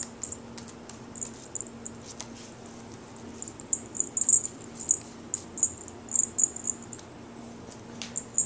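Small bell on a cat toy jingling in irregular bursts as the toy is shaken and waved for cats, with a faint steady hum underneath.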